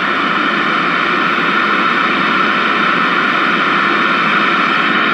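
1968 RCA Victor KCS160 tube portable TV's speaker hissing loud, steady static, with no station coming in.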